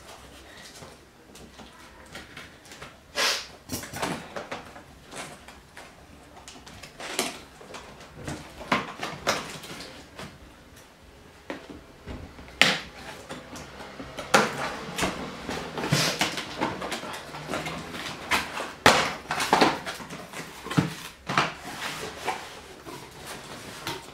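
Cardboard boxes being opened and handled by hand: irregular scrapes, rustles and light knocks of card and flaps, with quiet gaps between them and busier handling in the second half.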